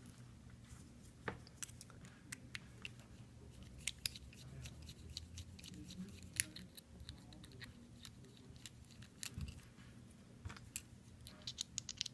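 Faint, scattered small clicks and taps of a freshly picked Medeco Biaxial lock and its picking tools being handled, with a quick run of clicks near the end, over a low steady hum.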